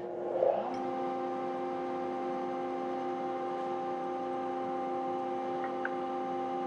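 Hammer A3 31 jointer-planer running without cutting wood: a steady machine hum made of several even tones. A short rustle comes about half a second in, and the mix of tones shifts slightly just after.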